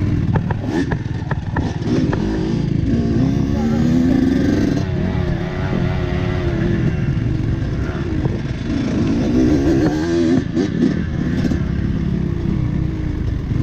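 Dirt bike engine revving up and easing off again and again as it is ridden over rocks, with sharp knocks and clatter near the start and again about ten seconds in.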